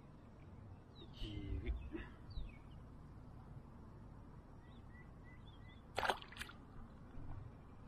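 Open-air ambience with wind rumbling on the microphone and a few faint bird calls. About six seconds in come two sharp knocks close together.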